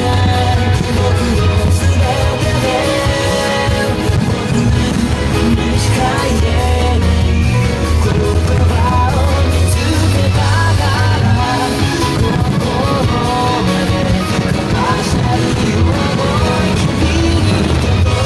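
A loud rock-style song with singing and guitar, played without a break.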